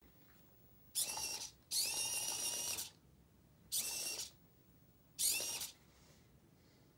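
Small electric gear motors of a LEGO Technic robot car whirring in four short runs, each started by a tap on a Bluetooth phone app; the second run lasts about a second, the others about half a second.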